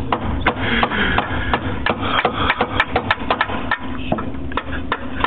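Hammer driving a nail into a wooden board, a steady run of blows about three a second.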